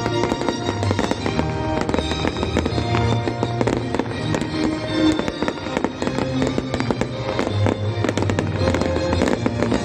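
Fireworks going off in a rapid run of bangs and crackles over loud music played for the show.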